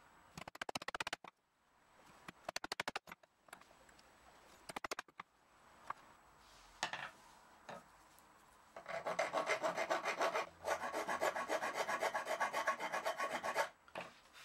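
Hand file rasping on an oak knife handle with metal rivets, in quick strokes: three short bursts in the first five seconds, a few single scrapes, then a long run of fast, even strokes from about nine seconds in that stops near the end.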